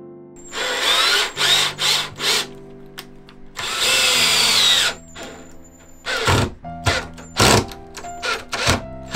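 Cordless drill driving screws up through a plywood cabinet into a birch butcher block countertop. It runs in short bursts, then in one longer run of about a second with a whine that rises and falls as the screw goes in, then a few brief blips near the end.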